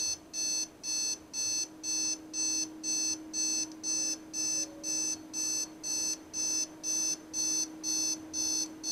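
A cheap alarm clock's built-in buzzer sounding its alarm, beeping in a steady rhythm of about two high-pitched beeps a second. A steady low hum runs underneath.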